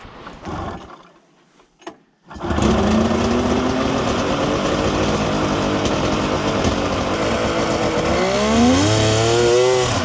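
Polaris 650 triple two-stroke snowmobile engine being pull-started: a couple of short sputters on the recoil cord, then it catches a couple of seconds in and runs loud and steady, revving up near the end. Its CVT belt is slipping.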